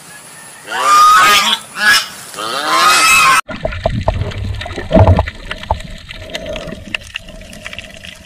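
A swan giving a few loud, nasal calls in quick succession. About three and a half seconds in, the sound cuts abruptly to a quieter low rumble with scattered faint clicks and a soft steady hum.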